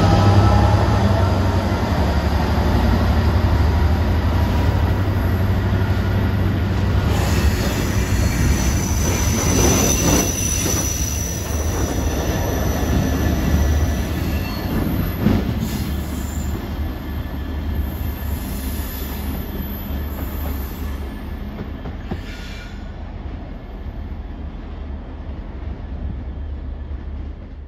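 Freight train rolling past: a steady low engine hum under the rumble of wagons on the rails, with high-pitched wheel squeal, slowly fading as the train moves away.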